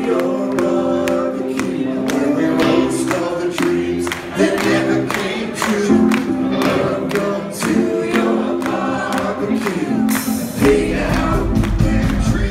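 A live rock band playing with several musicians on stage: sung vocals over keyboards, guitars and drums. Heavy deep bass comes in about ten and a half seconds in.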